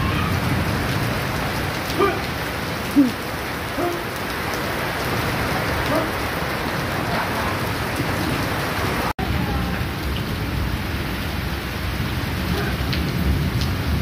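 Heavy tropical downpour: a steady hiss of rain pouring onto a paved patio and palm trees, with a couple of short knocks around two and three seconds in. The sound cuts out for an instant about nine seconds in.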